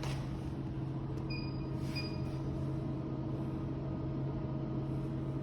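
Steady electrical hum of laundry-room machinery, with two short electronic keypad beeps about a second and two seconds in, as number buttons are pressed on a coin-op machine's keypad.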